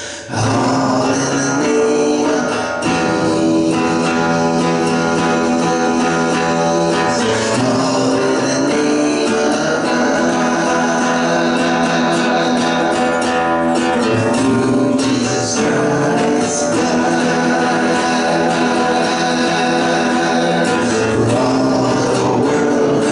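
Acoustic guitar strummed, coming in suddenly just after the start, with a man singing along.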